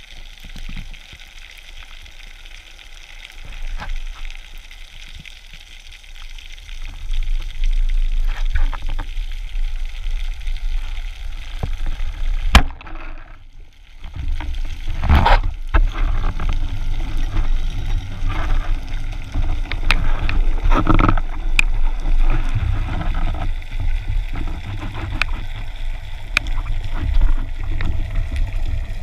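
Underwater sound through a diving camera's housing: a faint water hiss, then one sharp crack about twelve and a half seconds in as a band-powered speargun fires. From about fifteen seconds on, a steady low rumble of water movement follows, with scattered small clicks and bubbles.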